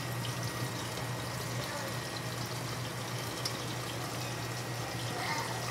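Steady hissing noise over a low, steady hum, with a few faint clicks.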